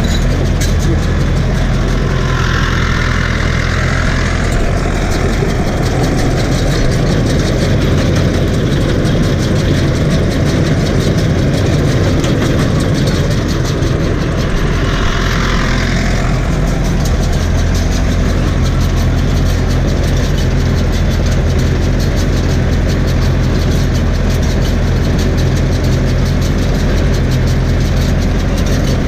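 Tractor engine running steadily at a constant speed, heard from the driver's seat, while it drives a SIPMA PS 1312 round baler baling hay.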